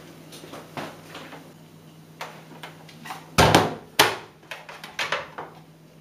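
Scattered knocks and clicks of things being handled, the two loudest about three and a half and four seconds in.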